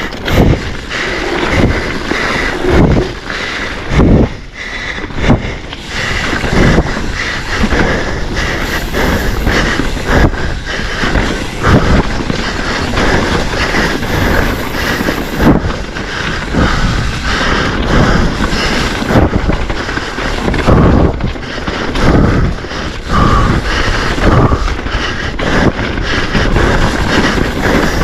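Mountain bike ridden fast down a dirt trail: wind buffeting the microphone, tyres on dirt and the bike rattling and knocking over bumps and roots.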